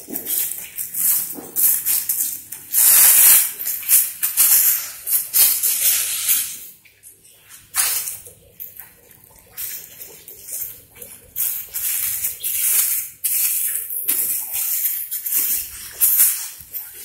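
Thin plastic fruit bags crinkling and rustling in irregular bursts as they are handled, untied and pulled off fruits on the branch, with a short lull partway through.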